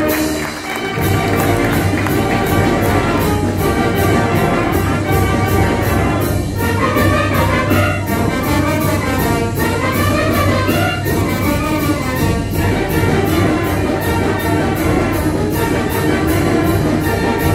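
Village brass band (banda filarmónica) playing, with trumpets and trombones over a steady bass and a regular percussion beat.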